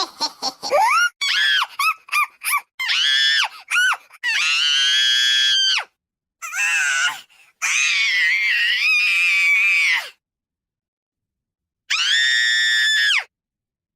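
A female voice screaming and shrieking in a string of separate edited clips: first a quick run of short squeals that swoop up and down in pitch, then three longer held high screams, with dead silence between clips.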